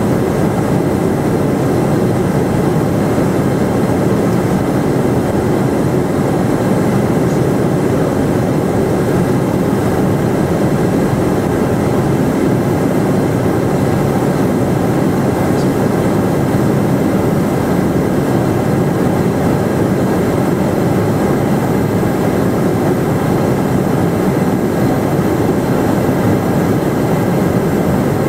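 Steady cockpit noise of an Eclipse 500 very light jet on approach: its twin Pratt & Whitney PW610F turbofans and the rush of airflow, heard inside the cabin as a dense, unbroken rumble with a faint high whine.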